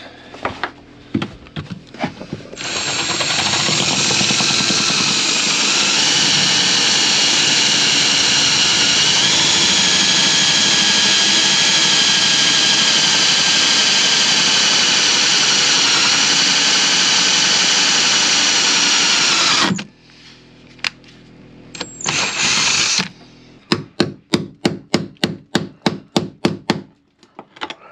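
Cordless drill boring into a metal skin-fitting nut to split it, running steadily for about seventeen seconds with a high whine, then a short second burst. Near the end, about a dozen quick hammer blows, around four a second, on a tool held against the fitting.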